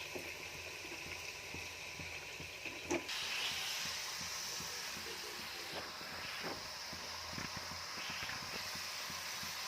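Potato fries deep-frying in hot oil: a steady sizzling hiss with scattered small crackles.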